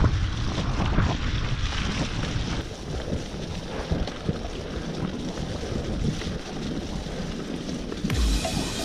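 Wind buffeting a bike-mounted camera's microphone, over the rumble of a mountain bike's tyres rolling through mud and puddles on a wet dirt track.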